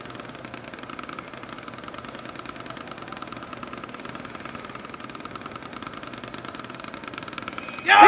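Wooden drumsticks hitting a Drumometer practice pad in very fast single strokes, about eighteen hits a second, a steady dense patter: the closing seconds of a timed speed-drumming run. Near the end the strokes stop and a crowd breaks into loud cheering, the loudest sound here.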